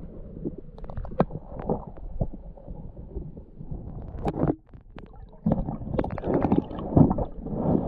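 Muffled underwater sound of a camera submerged in a stream: low rumbling water noise with scattered clicks and knocks. It drops away briefly just past the middle, then comes back louder with more clicks.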